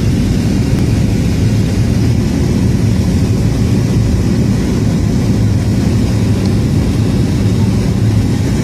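Steady low drone of an airplane in flight as it begins its descent.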